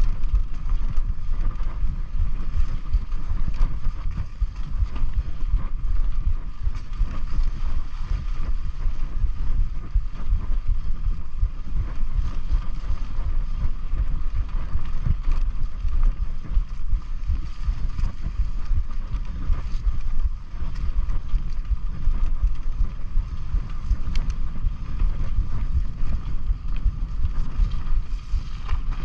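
Mountain bike riding along a dirt trail, heard from the bike: steady wind rumble on the microphone with scattered small rattles and knocks from the bike over the ground.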